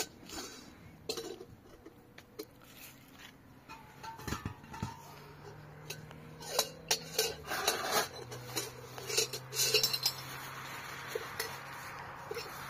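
Pots, dishes and utensils clinking and knocking as they are handled, with a steady low hum coming in about five seconds in.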